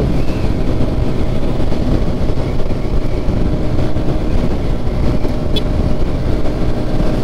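Steady drone of vehicles running at speed on a highway: a constant engine hum with road and wind noise, with no change in pitch.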